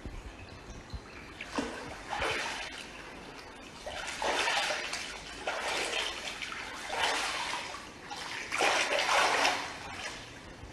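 Floodwater splashing and sloshing in uneven surges, about six swells of rushing noise that rise and fall.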